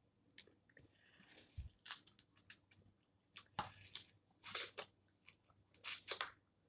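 Snow crab legs being cracked and picked apart by hand and the meat chewed close to the microphone: short, scattered crunches and crackles, louder in the second half.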